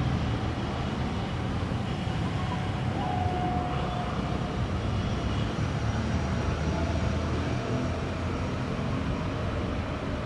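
Steady low rumble of distant city traffic, with a faint brief tone about three seconds in.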